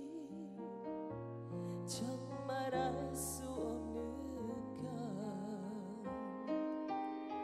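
A woman singing a slow, tender ballad into a microphone, her long notes wavering with vibrato, over soft piano-led backing music.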